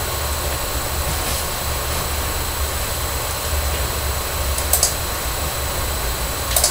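Steady background noise: a low hum under an even hiss, with a couple of brief faint clicks, one around five seconds in and one near the end.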